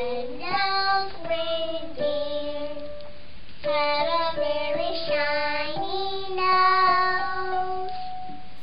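A young child singing a slow melody, holding several notes for about a second.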